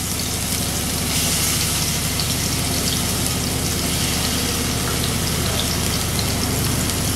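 Minced garlic frying in hot oil in a nonstick wok: a steady crackling sizzle that gets a little louder about a second in, over a steady low hum.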